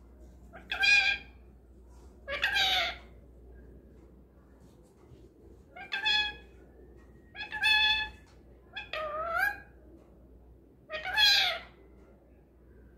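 A green parakeet calling six times in short, drawn-out calls, each under a second long, spread over about ten seconds with pauses between them.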